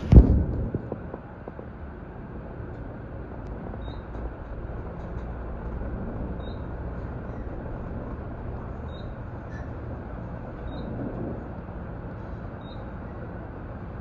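Schindler-modernized traction elevator: a loud thud right at the start as the car doors shut, then the steady low rumble and hum of the car travelling up the hoistway.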